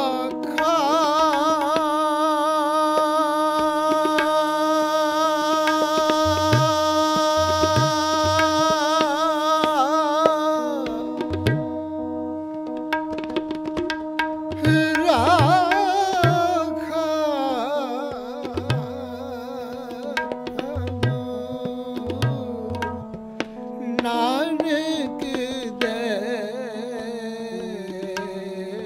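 Sikh kirtan music: harmonium and electronic keyboard holding sustained chords under a wavering melody, with tabla strokes throughout and deep bayan strikes coming in about six seconds in.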